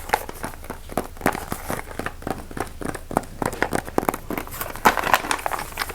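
Fast, irregular tapping and crinkling on an object held close to the microphone, several sharp taps a second.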